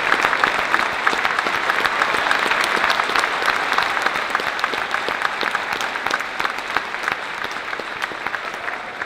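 Large audience applauding steadily, a dense patter of many hands clapping that slowly dies down near the end.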